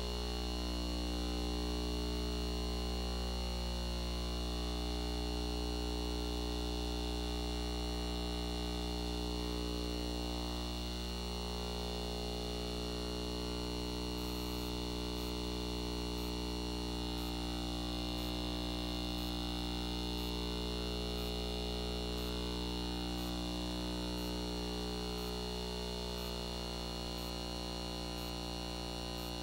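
Steady electrical hum made of several unchanging tones, with faint high ticks about once a second from about halfway on.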